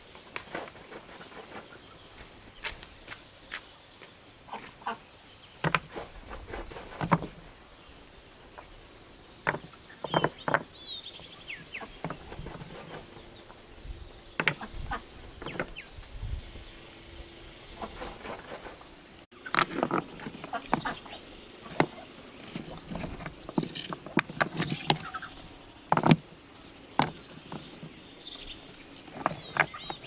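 Irregular knocks and taps, some in quick clusters, over an insect's steady high chirring.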